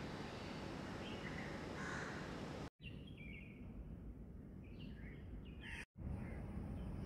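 Outdoor ambience: a steady low background rumble with a few short bird calls, broken twice by brief gaps of silence.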